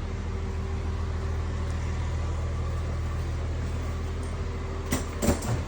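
An engine idling steadily with a low hum, with two or three sharp knocks about five seconds in.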